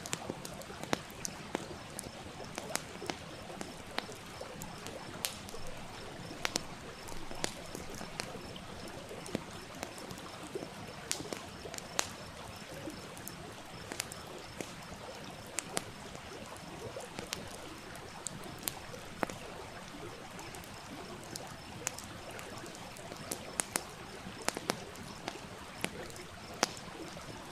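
Wood fire crackling with irregular sharp pops over the steady rush of a small stream.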